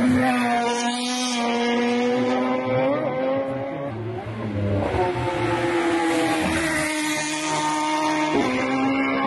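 Isle of Man TT race motorcycles passing one after another at full throttle, their high-revving engines sweeping by with a slight drop in pitch as each goes past.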